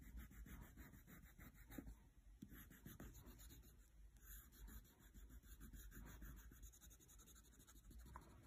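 Faint scratching of a wax crayon colouring on sketchbook paper, in rapid back-and-forth strokes.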